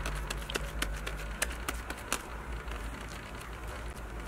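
Gloved hand kneading and pressing a wet minced-meat mixture in a plate: a quick run of sticky, smacking clicks, about four a second, that thin out about two seconds in.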